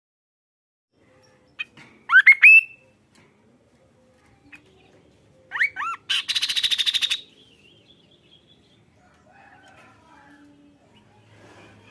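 Kaso-kaso bird calling: a quick cluster of sharp upswept whistled notes about two seconds in, then two more swept notes leading straight into a fast, buzzy rattle lasting about a second, followed by faint scattered chirps.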